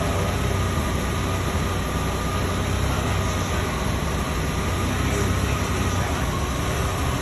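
1990 Jeep Wrangler YJ's carbureted engine running steadily, with its exhaust leak repaired and a new power steering pump fitted.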